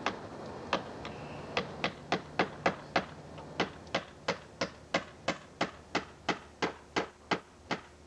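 A hammer tapping at fascia trim at a house's eave: about twenty sharp blows, two spaced ones at first, then a steady run of about three a second.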